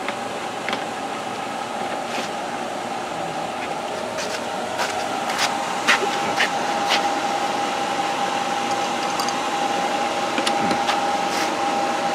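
Light plastic clicks and knocks as toy workbench pieces are fitted and handled, several in a cluster about halfway through and a couple more near the end. Under them is a steady mechanical hum with a held tone.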